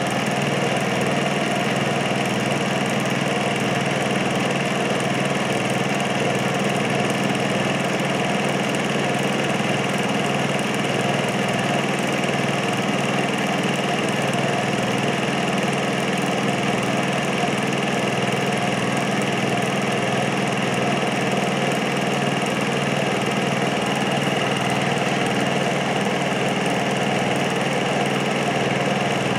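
Movie film projector running: a steady, unchanging mechanical hum and whir from its motor, fan and film transport.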